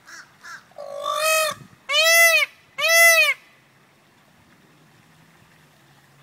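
Indian peafowl calling: three loud, arched calls in quick succession starting about a second in, each about half a second long, after a few fainter short notes.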